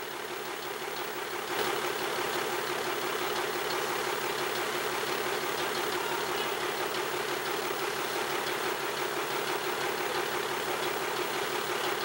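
A crane's engine running steadily, a little louder from about a second and a half in.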